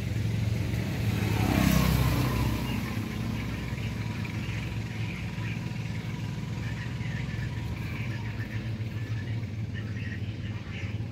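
A motor vehicle passing by, loudest about two seconds in, its pitch falling as it goes past, over a steady low hum.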